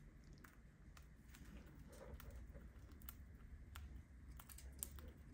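Faint, irregular small clicks of a cockatiel's beak pecking and cracking seeds from a millet spray.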